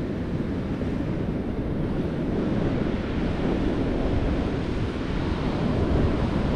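Ocean surf breaking on a sandy beach as a steady rush, with wind buffeting the microphone in a low rumble.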